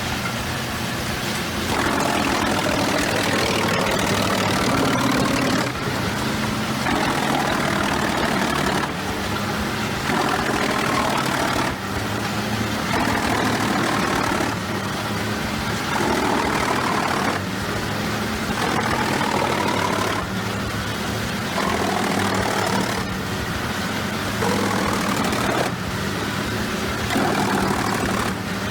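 Large wood chipper running: a steady engine drone with a louder grinding layer that comes and goes every couple of seconds.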